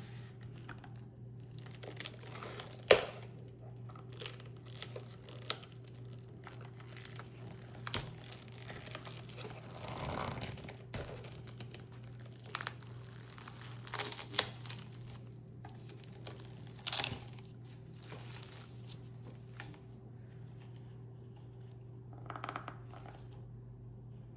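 Plastic packaging being handled and opened, crinkling and rustling with scattered clicks and a sharp snap about three seconds in, over a steady low hum.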